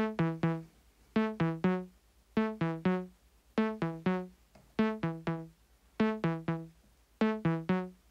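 Eurorack synthesizer voice playing a step sequence of short, bright plucked notes in quick groups of three, one group about every 1.2 seconds, set by a Monome Teletype sequencer.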